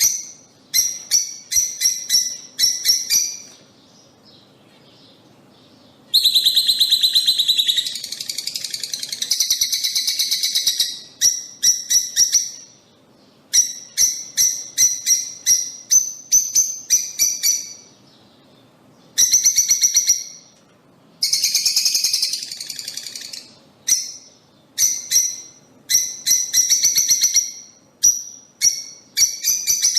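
Lovebirds calling: repeated short trains of rapid, high-pitched chirps, broken by several longer stretches of dense, shrill chattering.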